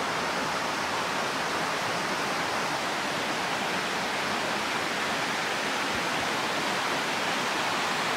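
Rocky mountain river rushing steadily over stones, an even, unbroken rush of water.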